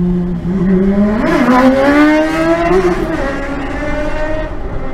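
Motorcycle accelerating hard past, its engine note climbing through the gears. The pitch drops at a gear change about a second and a half in and again near three seconds, and the sound is loudest in between before settling as it pulls away.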